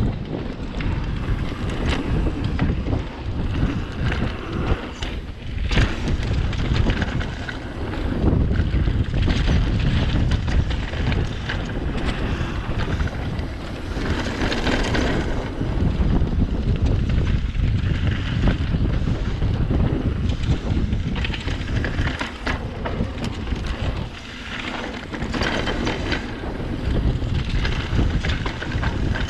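Wind buffeting a GoPro action camera's microphone during a fast mountain-bike descent, with tyre rumble on dirt and a steady run of knocks and rattles as the bike goes over bumps.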